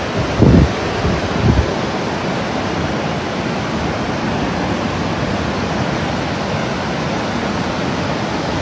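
Steady hiss of a rain shower falling, with two short low thumps in the first two seconds.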